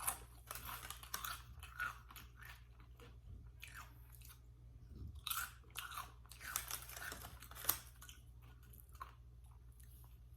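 Close-up chewing and crunching of tortilla chips (Doritos) with queso, a quick run of crisp crunches with pauses between bites.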